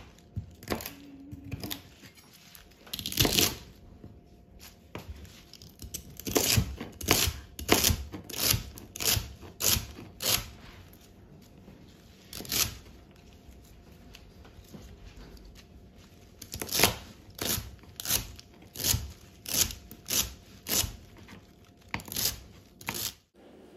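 Chef's knife chopping a bundle of celery stalks on a cutting board: crisp, crunchy cuts in runs of about two strokes a second, with pauses between runs.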